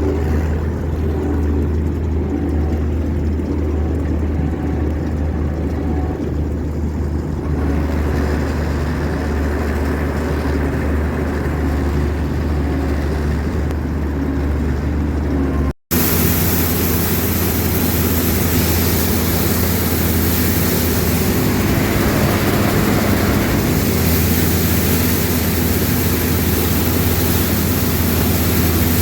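Combine harvester running steadily at working revs, a low engine drone that holds throughout. About halfway through the sound cuts out for an instant and comes back with more hiss over the drone.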